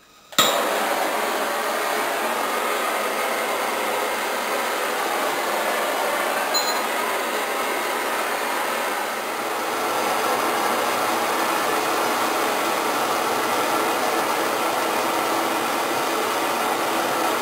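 Handheld propane torch lit with a sharp pop about half a second in, then the steady rushing hiss of its burning flame.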